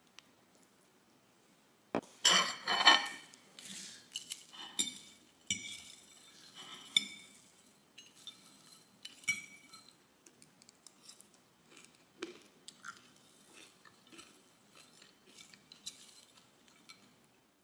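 Metal fork clinking and scraping against a ceramic plate as a chopped salad is tossed, in short irregular clicks. A denser burst of clatter comes about two seconds in.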